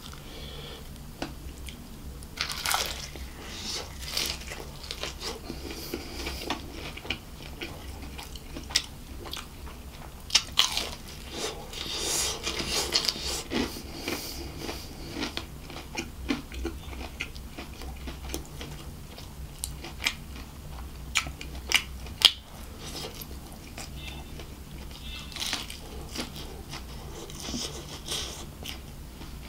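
Close-miked biting and chewing of KFC crispy fried chicken: crackly crunches of the breaded coating and wet chewing, densest about a third of the way in, over a steady low hum.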